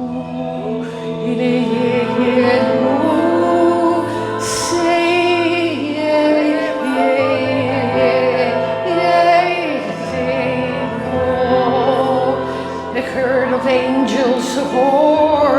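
Slow worship music: a singer holding long, wavering notes over sustained low chords.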